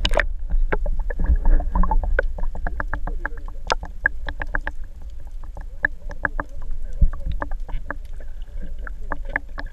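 Muffled underwater sound picked up by a GoPro camera held under the sea surface: a steady low rumble with irregular sharp clicks and ticks, several a second, and one heavier knock about seven seconds in.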